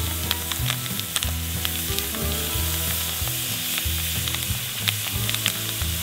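Diced ham sizzling and popping as it drops into hot oil in a cast iron skillet.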